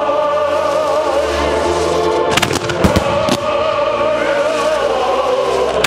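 Fireworks shells bursting: a quick cluster of sharp bangs about two and a half seconds in, then two more within the next second. Loud music with long held notes plays throughout.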